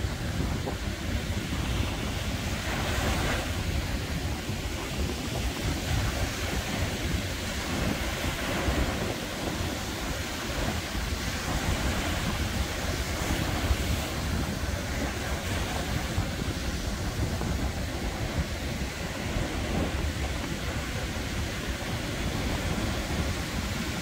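Sea surf breaking and washing up a sandy beach: a steady rushing wash that swells every few seconds as waves come in. Wind buffets the microphone, adding a fluttering low rumble underneath.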